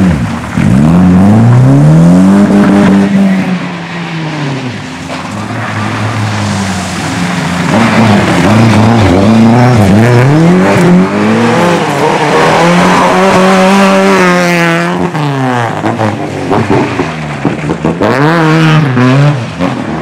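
Rally car engines revving hard through a slippery corner, one car after another. The pitch climbs and drops repeatedly as the drivers work the throttle and change gear, with very high revs about three-quarters of the way in.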